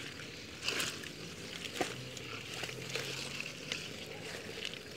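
Water sloshing and splashing in shallow water, with a sharper splash about a second in, over a steady high hiss of night insects.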